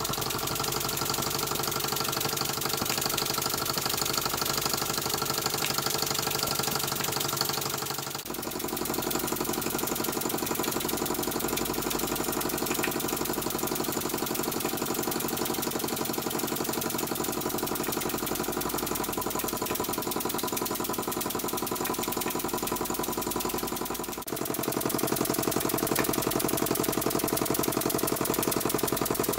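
KMV SD01 vertical toy steam engine running steadily on live steam under load, driving a fan by belt: a fast, even mechanical beat, a little louder from about 24 seconds in.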